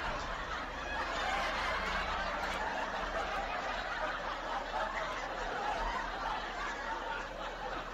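A person laughing quietly and muffled over a steady background hiss.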